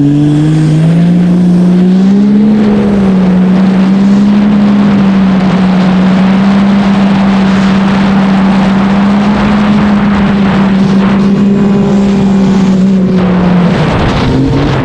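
Yamaha Sidewinder snowmobile's turbocharged three-cylinder four-stroke engine under hard acceleration. Its pitch climbs over the first two seconds or so, then holds at a steady high note at speed. It falls away near the end as the throttle comes off.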